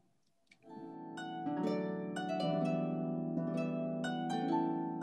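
Harp music: a flowing run of plucked, ringing notes that builds into rich chords, starting about half a second in after a moment of near silence.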